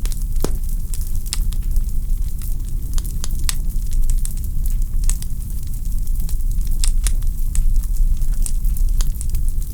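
Wood fire burning in a fireplace: logs crackling with frequent, irregular sharp pops and snaps over a steady low rumble of the flames.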